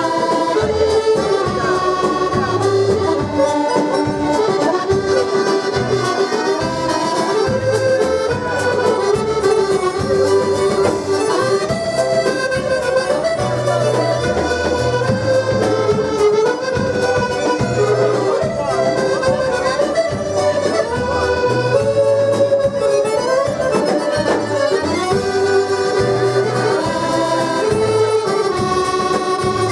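Two button accordions playing a lively dance tune together, a held, moving melody over a regular repeating bass beat.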